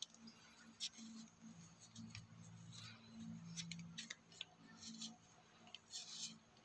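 Faint, scattered clicks and light taps of hand tools working on a tractor's diesel injection pump, over a faint low steady hum.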